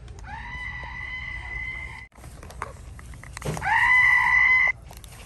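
Squeeze-activated horned-animal toy giving a high, steady electronic scream each time its cheeks are squeezed. It sounds twice: a cry of about two seconds, then a shorter, much louder one about three and a half seconds in, just after a soft knock of handling.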